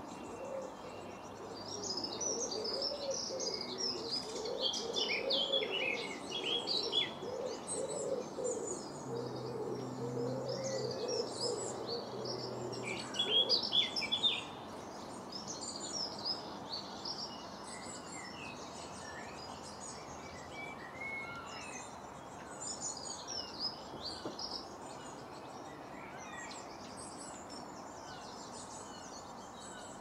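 Garden songbirds singing and chirping, busiest in the first half, with a pigeon cooing low and repeatedly underneath until about halfway. After that the song thins to scattered chirps.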